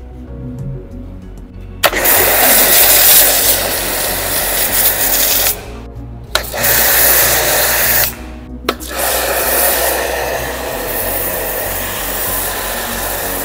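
Karcher HD 6/15-4 Classic pressure washer spraying through a foam cannon: a loud, steady hiss that starts about two seconds in and breaks off twice briefly, near six and near eight and a half seconds.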